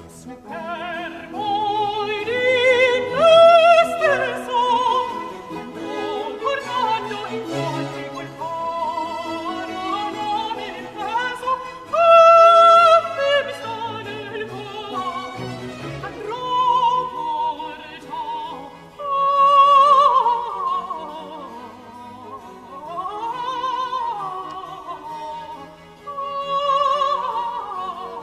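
Countertenor singing a Baroque opera aria in Italian over orchestral accompaniment, with long held notes sung with vibrato and quick florid runs up and down.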